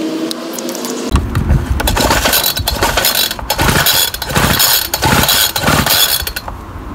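Recoil starter cord of a Homelite Bandit SX-135 25cc two-stroke string trimmer pulled several times, beginning about a second in, turning the engine over without it firing: the fuel tank is still empty.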